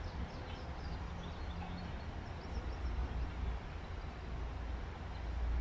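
Outdoor ambience: a steady low rumble, swelling near the end, with small birds chirping in quick, high, short notes.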